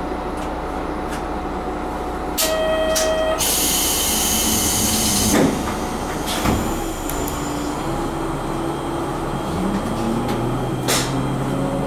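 Hitachinaka Seaside Railway diesel railcar pulling away: a short pitched tone sounds for about a second, then air hisses for about two seconds, and then the diesel engine's pitch slowly rises as the car gathers speed.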